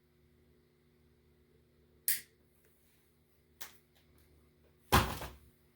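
Workshop handling noises over a steady low hum: a sharp click about two seconds in, a fainter tick, then a louder clatter near the end.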